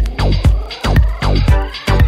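Background electronic dance music with a steady driving beat; a rising synth sweep begins about halfway through.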